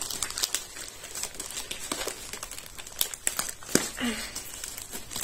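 Plastic mailer bag crinkling and rustling as it is handled and opened, with irregular sharp crackles throughout.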